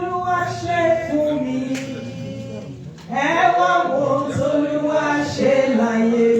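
Church congregation singing a praise song together, men's and women's voices. Two sung phrases with a short break about three seconds in.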